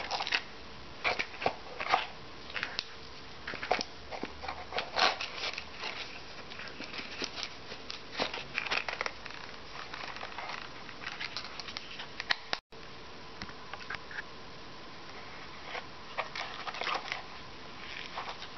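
Handling noise from a black nylon belt sheath being lifted out of its cardboard presentation box and turned over in the hands: scattered clicks, scuffs and rustles, busiest in the first part and sparser later.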